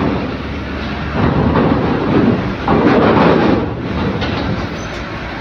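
Heavy cargo truck driving off a ferry's bow ramp onto a steel grated ramp, its engine running and the metal ramp clattering under the wheels, in two louder surges about a second in and around three seconds in.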